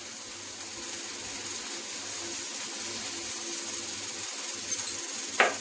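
Chicken, tomato and spices frying in oil in a pan, sizzling with a steady hiss. One short sharp sound comes near the end.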